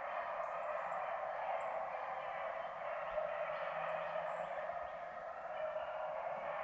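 Pack of beagles baying in the distance as they run a rabbit, their voices blending into a steady chorus.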